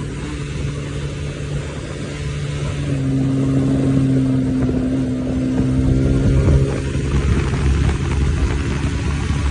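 Bajaj Pulsar NS200 motorcycle's single-cylinder engine running at speed while being ridden. The engine note drops in pitch right at the start, then holds steady and grows louder for several seconds before breaking up near the end.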